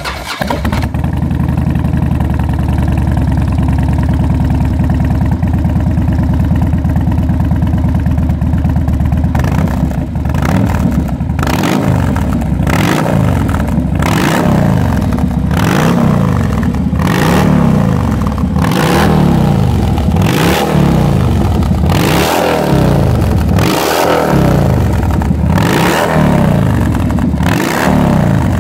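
Harley-Davidson Fat Bob V-twin running through an MTC aftermarket two-into-one exhaust. It idles steadily for about the first ten seconds. Then the throttle is blipped over and over, about once a second, each rev rising and dropping back.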